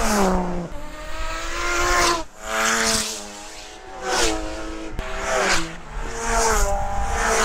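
Cars driving past on a race circuit one after another, engines revving up and then dropping in pitch as each goes by, about four passes in all.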